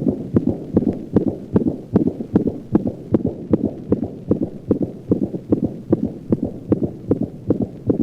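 A dog's heart sounds with the murmur of aortic insufficiency: rapid, regular beats with a high-pitched diastolic murmur that begins with the second heart sound and fades after its onset, breaking up the normal heart sound pattern.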